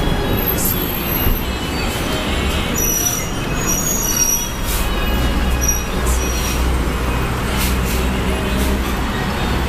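Street traffic close by: a steady low rumble of heavy vehicles that swells about halfway through, with a few short high-pitched squeals.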